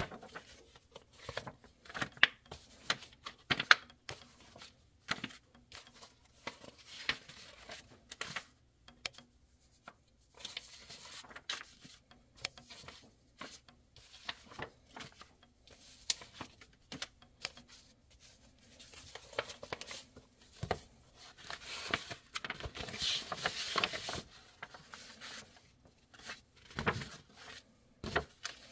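Paper sheets rustling and flicking as a stack of old sales brochures is leafed through, sheets lifted and laid down one after another, with a longer spell of rustling about three quarters of the way through.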